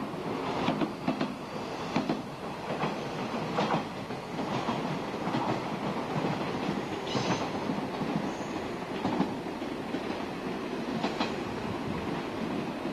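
Cream-and-red limited-express electric multiple-unit trains running on the line, with a steady rolling rumble and sharp wheel clacks over rail joints at uneven intervals.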